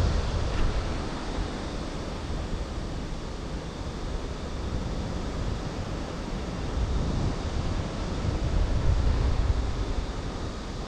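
Wind rushing and buffeting on the microphone in paraglider flight: a steady rush with gusts, swelling louder about seven to nine seconds in.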